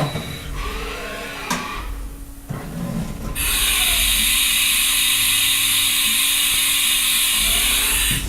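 Haas VF-1D vertical machining center running: clicks, knocks and short rising and falling servo whines as the axes move. Then, about three and a half seconds in, a loud, steady, high hiss starts suddenly and holds.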